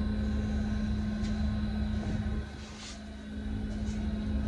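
Steady machine drone of a smoking booth's air filtration unit: a constant hum with a low rumble beneath it that drops away for about a second midway.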